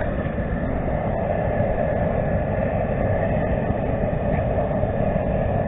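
Outdoor propane jet burner turned up high under a boil pot, a steady rushing hiss, heating the water toward a boil.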